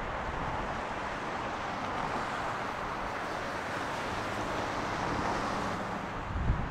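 Jet noise from the Airbus A330neo's Rolls-Royce Trent 7000 engines on final approach: a steady rush that grows slightly louder. Wind buffets the microphone, with a low gust near the end.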